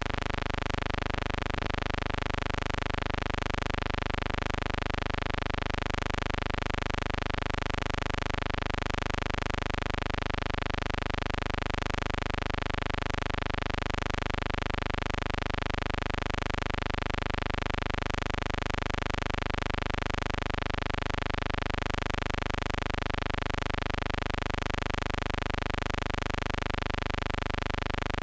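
A steady electrical buzz that starts abruptly and holds one unchanging pitch, with many overtones, at a constant level throughout. It is a hum on the film's soundtrack rather than a sound from the railway scene.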